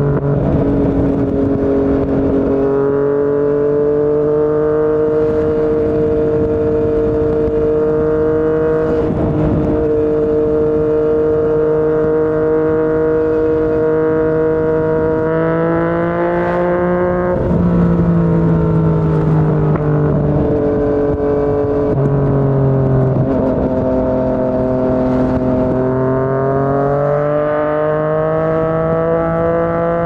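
Yamaha MT-09's inline three-cylinder engine breathing through a Yoshimura R55 slip-on exhaust, running on the road at a fairly steady pace. Its pitch steps and glides up and down several times, rising most clearly near the end.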